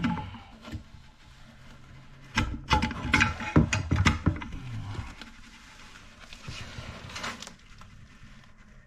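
Irregular clicks and knocks of toilet tank valve parts being handled and fitted, in a cluster a couple of seconds in and a few more near the end.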